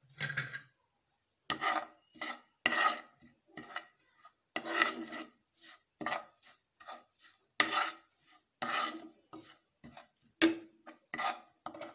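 A steel spoon scraping against a frying pan as it stirs a thick spice masala of oil, ground spices and lemon juice, in many short, irregular strokes about two a second.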